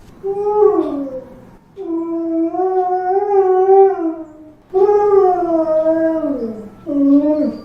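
Dog crying: four mournful howling whines, the second held steady for about two and a half seconds, the others sliding down in pitch at the end.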